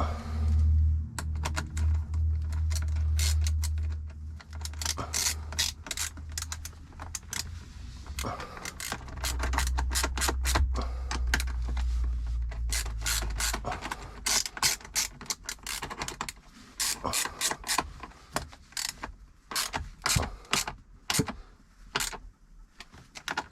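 Ratchet spanner clicking in quick runs as a nut is wound down onto a battery terminal post, with short pauses between runs. A low rumble sounds under it for the first few seconds and again around the middle.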